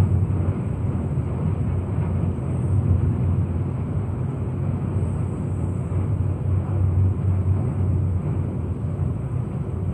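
Steady low rumble of a ferry under way, churning through broken ice.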